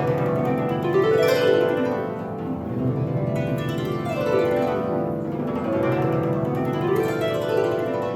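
Harp played in sweeping runs, the plucked notes cascading down and back up the strings over and over, each note left to ring into the next.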